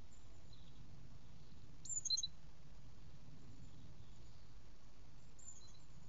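Small songbirds calling: a quick cluster of high, sharp chirps about two seconds in, with fainter chirps near the start and again near the end, over a steady background hiss.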